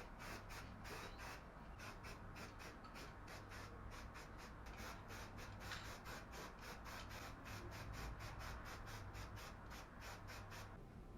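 Quick, faint scraping strokes repeated about three to four times a second, stopping shortly before the end.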